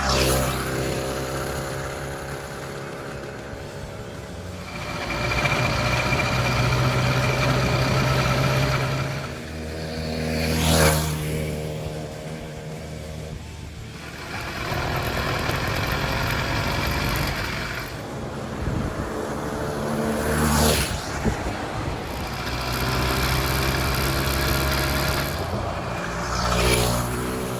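Small 49cc two-stroke motorized-bicycle engine running under throttle as the bike is ridden, growing louder and fading away several times, with three loud close passes.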